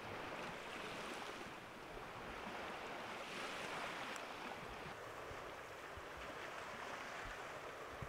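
Small waves of Lake Baikal washing onto the shore: a steady rushing hiss that swells and ebbs every few seconds.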